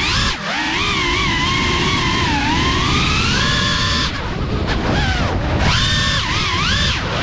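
Cinelog 35 cinewhoop's brushless motors and propellers whining, the pitch sliding up and down with the throttle over a rush of prop wash. The whine drops low briefly near the start and again from about four to five and a half seconds in, as the throttle is cut and brought back.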